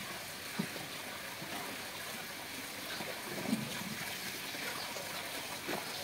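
Steady background hiss, with a brief soft sound about three and a half seconds in.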